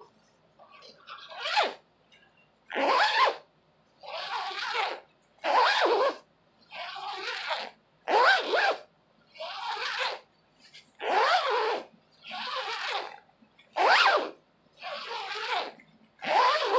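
Small plastic zipper on a nylon windbreaker being zipped up and down over and over, about a dozen rasping strokes at an even pace. Sharper, shorter strokes alternate with softer, longer ones.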